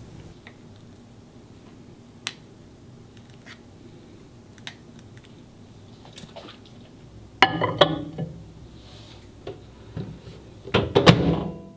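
Kitchen handling sounds around a ceramic mug of cocoa: scattered light clicks and taps, then two louder clattering knocks about seven and a half and eleven seconds in.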